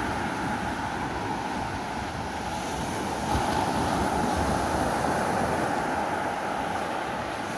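Sea waves washing ashore in a steady wash of surf, with wind buffeting the microphone.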